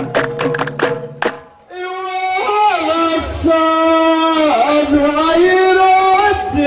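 Ahwach: a chorus of men chanting over rhythmic hand claps, about four to five a second, which stops about a second and a half in. Then a solo male voice sings a long, drawn-out line through a microphone, holding notes and sliding between them.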